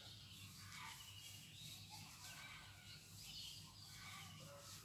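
Near silence: a duster rubbing faintly across a whiteboard as the writing is wiped off.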